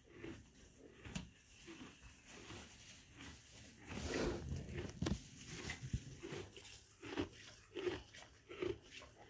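Miniature donkey munching hay from a tub close up: rhythmic crunching chews and rustling of dry hay. The chewing is loudest about halfway through, then settles into a steady chew, a bit under two a second.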